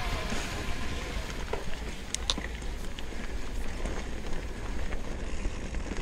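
A mountain bike rolling down a gravel forest single track, with its tyres running over loose stones and wind buffeting the camera microphone. A few sharp clicks or rattles come about two seconds in.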